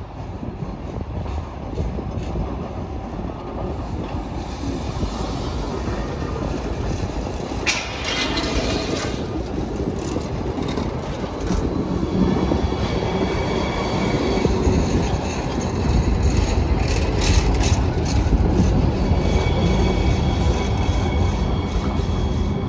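New Jersey Transit Hudson-Bergen light rail car rolling past close by on street track, with a steady low rumble and a high wheel squeal as it takes the curve. Near the end a faint rising whine comes in as another car approaches.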